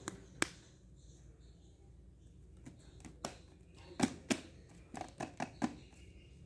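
A series of sharp clicks and taps, such as small objects being handled: two in the first half-second, one a little past three seconds in, then a quick cluster of about six between four and six seconds in.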